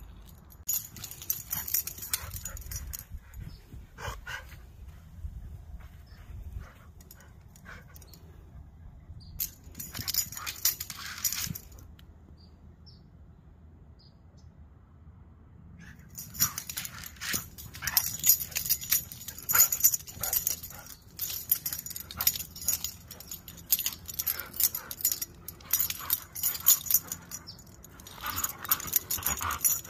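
Two huskies play-fighting, with scuffling and short dog vocalisations coming in irregular bursts and a quieter spell about halfway through.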